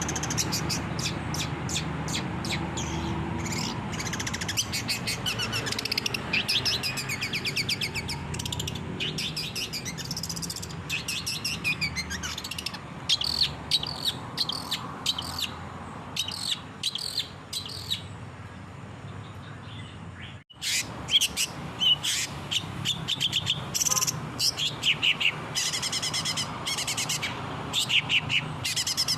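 Long-tailed shrike (cendet) singing in rapid runs of short, high chirps and clicks, over a low steady hum. The song breaks off for an instant about two-thirds of the way through, where the recording cuts, then carries on.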